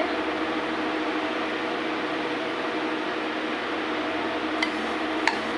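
Steady background hum and hiss, even throughout, with a few faint low tones in it; two light clicks near the end.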